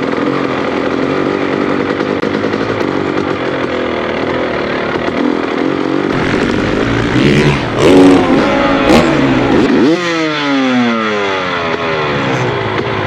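Motocross bike engines running, with a few sharp throttle blips in the middle, then the engine pitch falling steeply about ten seconds in as a bike backs off or passes.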